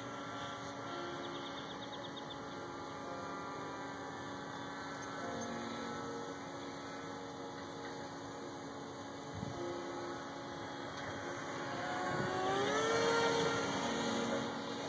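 Bixler radio-controlled model plane's electric motor and propeller giving a steady whine. About twelve seconds in, the whine rises in pitch and grows louder.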